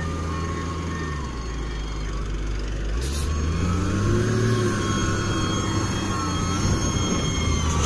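LiuGong 848H wheel loader's diesel engine running, with short reversing beeps that stop about a second in. From about three seconds in the engine revs up and down as the loader lifts its loaded bucket.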